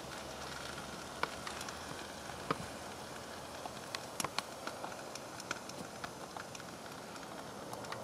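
Fire crackling inside a microwave oven as a JobMate 19.2 volt cordless drill burns: scattered sharp pops and ticks over a low hiss, with the loudest cluster of pops about four seconds in.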